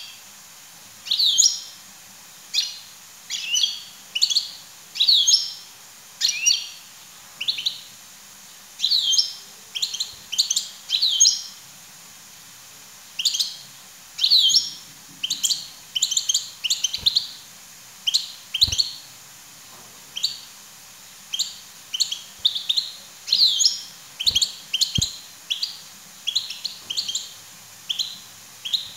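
European goldfinch chirping: quick clusters of short, bright twittering notes, with a brief pause around the middle.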